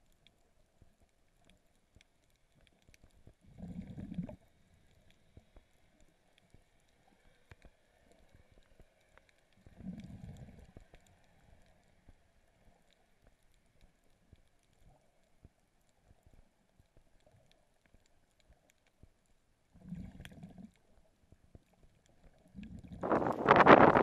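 Muffled underwater sound through a GoPro's waterproof housing: mostly near silence, with three brief low muffled rushes. Near the end, loud wind noise on the microphone as the camera comes back above water.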